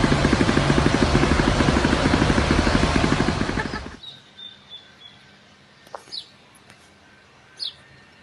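Loud engine and airflow noise on the flight deck of a Dassault Falcon 900LX trijet during a low pass, with a rapid low pulsing. It cuts off suddenly about four seconds in, leaving faint outdoor quiet with a couple of short high chirps.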